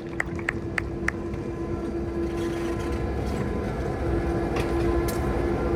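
GP7 diesel-electric locomotive's engine running at idle: a steady low rumble with a constant hum, growing slightly louder toward the end. A few sharp clicks sound in the first second.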